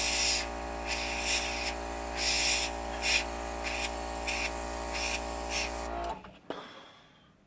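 Dual-action airbrush spraying paint in about a dozen short hissing bursts over the steady electric hum of its small air compressor. Both stop about six seconds in.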